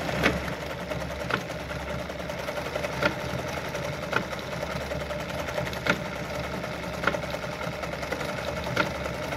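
Brother Pacesetter ZZ2-B702F sewing machine starting up and running steadily, stitching a decorative butterfly-pattern stitch through denim. A sharper tick comes every second or so over the motor hum.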